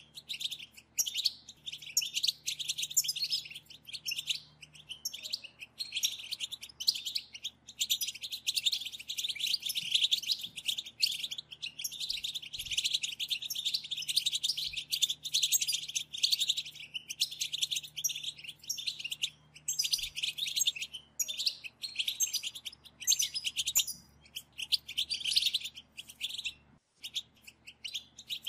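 A group of European goldfinches chattering: a dense stream of rapid, high twittering calls, the 'batbata' used to stir a caged goldfinch into singing. It breaks off briefly near the end.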